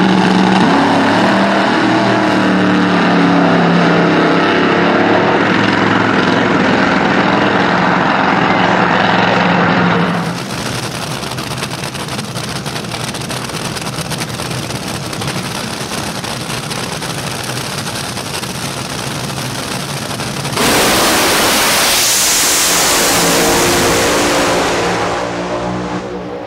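Nitro-burning front-engine dragsters running in the lanes with a steady, loud engine note. After about ten seconds a quieter even rumble follows. About twenty seconds in comes a very loud full-throttle run, which fades near the end.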